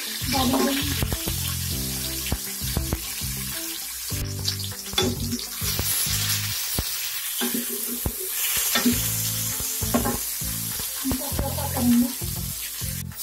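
Sliced onion and chopped garlic sizzling in hot oil in an aluminium pressure cooker, stirred with a wooden spoon that knocks and scrapes against the pot.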